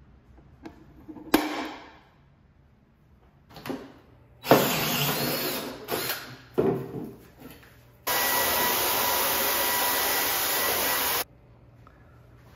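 Cordless DeWalt drill driving a Klein Tools hole saw through the top of an ABS plastic electrical box. It cuts in a short run of about a second and a half, then a few brief bursts, then a steady run of about three seconds that stops abruptly. A knock is heard about a second in.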